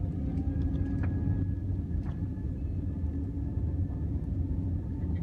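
Jet airliner's engines and wheels rumbling, heard from inside the passenger cabin during the take-off roll: a steady low rumble with a faint steady tone, stepping up in level right at the start, and a couple of light knocks.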